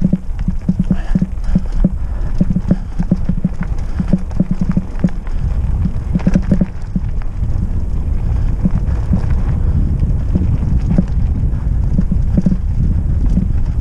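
Trek Roscoe 6 hardtail mountain bike ridden over rough trail: tyres and frame knocking and rattling several times a second over roots and rocks. A low rumble grows louder from about the middle.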